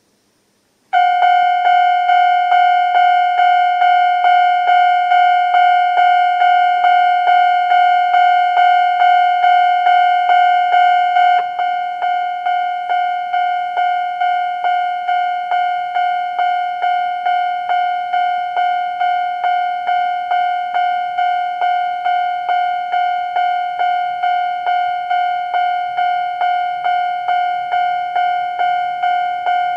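Japanese railway level-crossing alarm starting about a second in: a fast, high-pitched electronic ding repeating several times a second, the old standard crossing tone. It drops in loudness about eleven seconds in and keeps ringing.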